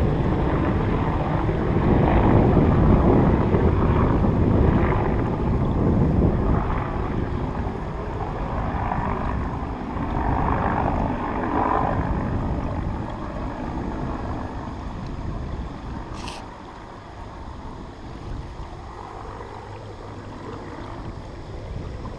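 Military helicopter flying over, its rotor and engine noise fading steadily as it moves away.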